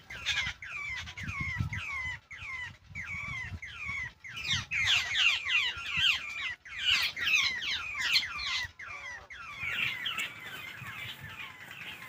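Babblers calling: a fast, steady series of harsh down-slurred notes, about three a second, growing louder about four seconds in and dropping to fainter calls near the end.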